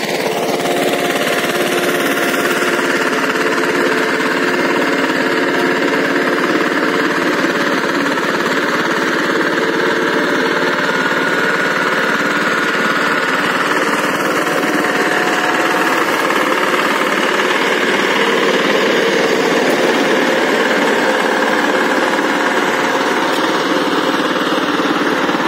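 Walk-behind power tiller's single-cylinder diesel engine running steadily under load, with a knocking beat, as it puddles a flooded paddy field.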